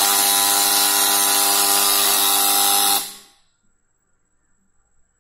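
Electric buzzer on a PLC sensor board giving one loud, steady, harsh buzz for about three seconds, then cutting off: the output signal that the LDR light sensor has detected its light path being cut.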